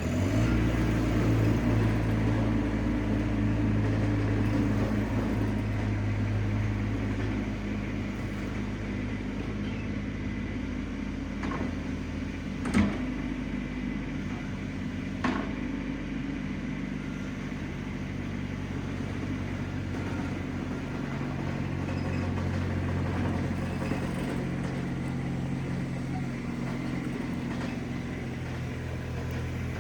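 RIPPA RS06 mini skid steer's engine running steadily while working, its pitch and loudness shifting a little with load, with two sharp knocks about halfway through.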